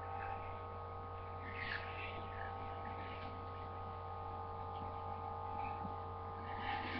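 Steady electrical mains hum made of several unchanging tones at once, with a few faint, brief higher noises over it.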